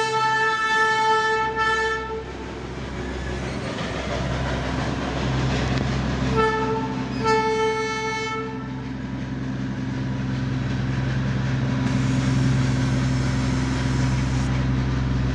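Darjeeling Himalayan Railway diesel locomotive sounding its horn: one long blast, then two short blasts about six and seven seconds in. Under the horn a steady low engine drone runs and grows louder from about four seconds in as the train moves off.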